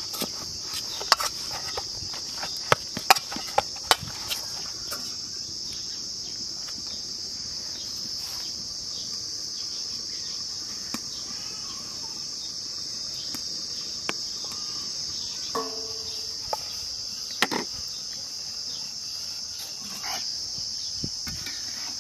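Insects chirring steadily in a high, unbroken drone, with a quick run of sharp knocks and taps in the first few seconds as dough is kneaded in an aluminium bowl, and a few single taps later.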